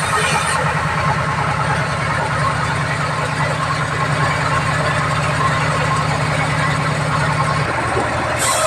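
Band sawmill machinery running steadily, its engine giving a continuous pulsing drone; one of the low tones drops out near the end.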